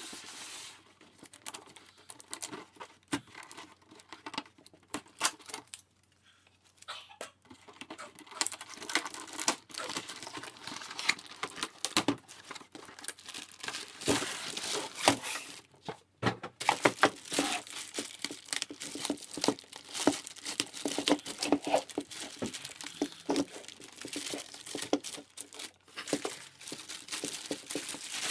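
Cardboard box being handled and opened, with irregular tearing, scraping and rustling, then a clear plastic bag crinkling as parts are unwrapped near the end.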